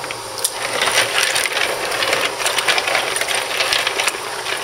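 Small clams clacking and knocking against one another as a hand stirs and rubs them in a sink full of water, washing the grit off their shells, with the water sloshing. Many quick, irregular clicks.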